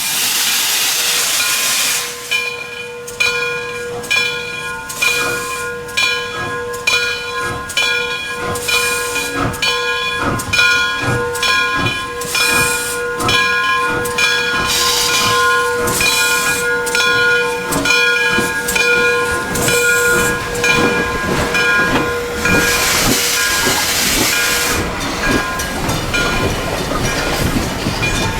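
Steam locomotive blowing off a loud hiss of steam, then pulling away with regular exhaust chuffs while a steady high whistle-like tone runs under them. A second loud burst of steam hiss comes about 23 seconds in.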